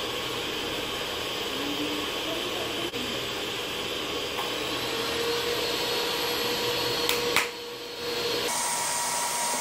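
Electric hand mixer running steadily with a whirring hum, dipping briefly near the end.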